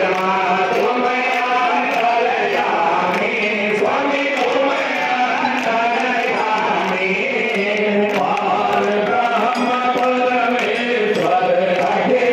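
Many voices of a festival crowd chanting together in a dense, overlapping wash, with a light high tick repeating about twice a second.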